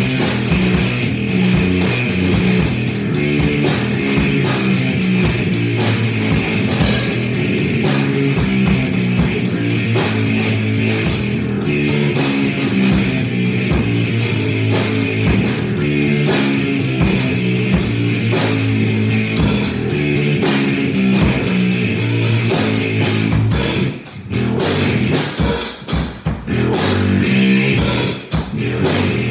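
Electric bass and drum kit jamming together, the bass playing a moving line over steady drumming. From about 24 seconds in the playing turns choppy, with short stop-start breaks.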